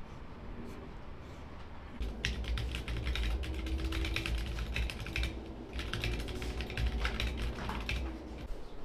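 Typing on a computer keyboard: rapid runs of keystrokes starting about two seconds in, with short pauses between bursts.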